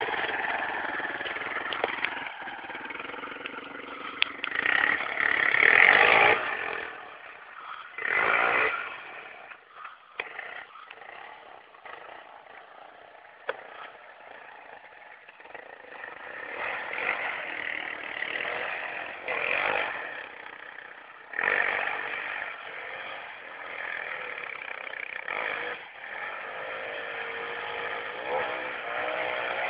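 Yamaha Raptor ATV's single-cylinder four-stroke engine revving in repeated surges and easing off between them as the quad is ridden, louder and fainter as it moves nearer and farther. It sounds thin through a cell phone's microphone.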